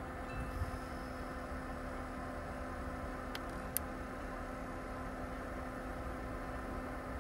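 Portable compressor car fridge running with a steady hum, and two short clicks about half a second apart a little past three seconds in.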